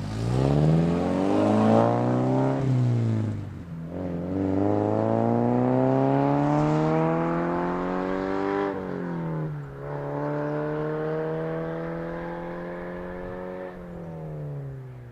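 Car engine accelerating hard through the gears: the pitch climbs, drops at a shift about three seconds in, climbs again to a second shift about two-thirds of the way through, then holds steady before easing off near the end.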